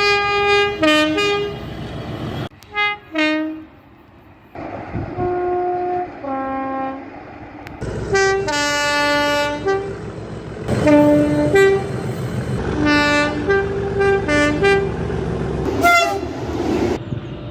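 Two-tone horns of British Rail Class 37 diesel locomotives, sounded again and again in short high-low pairs over the rumble of the locomotives. Several separate recordings follow one another with abrupt cuts between them.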